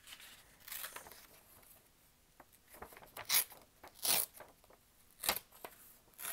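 A sheet of thick, textured origami paper torn by hand in several short rips, the loudest a little past the middle.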